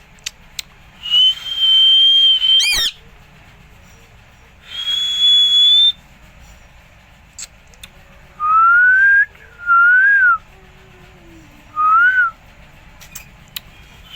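Green parrot whistling clear pure notes: two long, steady high whistles, the first ending in a quick wavering glide, then three shorter rising whistles in the second half.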